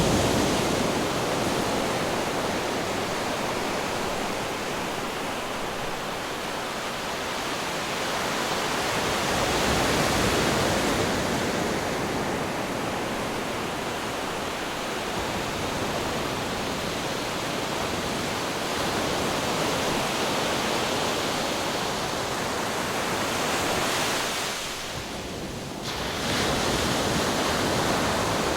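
Ocean waves breaking against rocks: a continuous rush of surf that swells and eases every several seconds, with a brief lull near the end.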